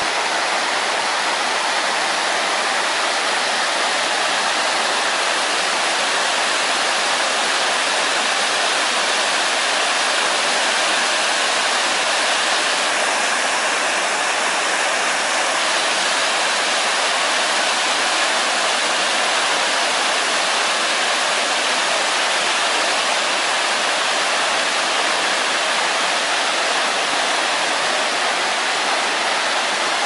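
A rocky mountain stream pouring over small cascades and rapids: a steady, unbroken rush of white water.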